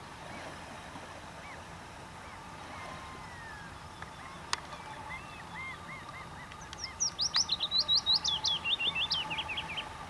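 A small songbird sings: a few soft chirping notes, then about seven seconds in a fast, loud phrase of sharp notes that steps down in pitch for about three seconds. A faint steady hum runs underneath from the same point.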